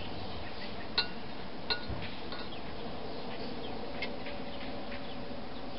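A few light metal clicks of a hand tool working at a lawn mower's Tecumseh engine carburetor, over steady background noise.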